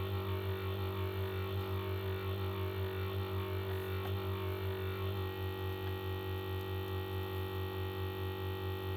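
A steady hum of several held tones, pulsing about three times a second; its tone shifts slightly about five seconds in.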